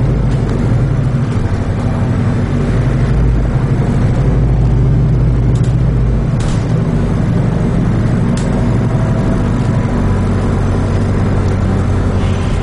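Wrightbus New Routemaster diesel-electric hybrid double-decker bus under way, heard from on board: a steady, low engine and drivetrain drone with road noise, and three short knocks around the middle.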